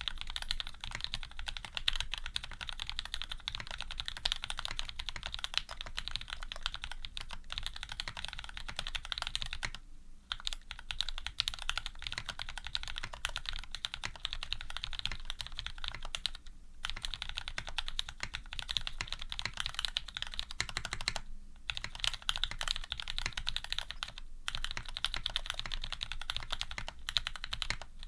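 Fast, continuous typing on a Serratus custom mechanical keyboard with lubed Cherry Retooled Black linear switches, GMK keycaps and an aluminium plate: a dense stream of keystroke clacks with a few brief pauses, near ten seconds in and again around sixteen, twenty-one and twenty-four seconds.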